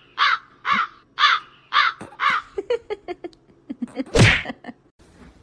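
Small dog vocalizing: a run of short calls, each rising and falling in pitch, about two a second. Then come quicker, shorter sounds and one louder cry about four seconds in.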